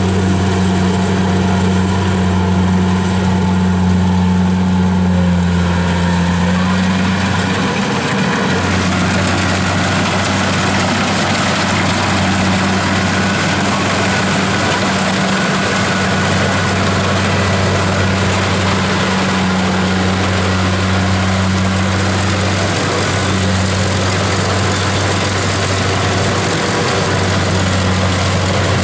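Diesel engine of a farm machine running steadily at constant speed, a deep even hum with a rushing mechanical clatter over it that grows fuller about eight seconds in.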